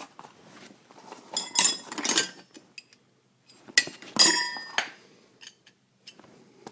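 Small steel parts and tools clinking and rattling against each other in two short bursts, with a bright metallic ring: new ball-joint hardware (pinch bolt, nut, washer) and sockets being handled.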